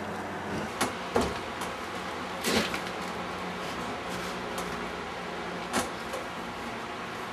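A handful of short knocks and clatters, the loudest about two and a half seconds in, over a steady low hum.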